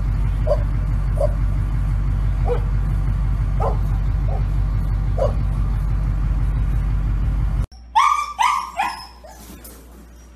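A steady low rumble with a few short, faint calls over it. About eight seconds in it cuts off, and a dog in a wire pen gives a quick run of four loud yelps, each falling in pitch.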